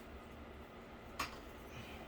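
Quiet room tone with a single short, sharp click a little past the middle, from handling parts while searching through them.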